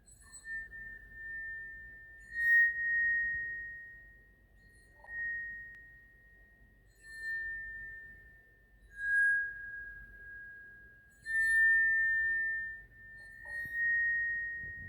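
A glass struck lightly about every two seconds, each strike ringing as one clear, high, steady tone that fades slowly. The pitch shifts slightly from one strike to the next.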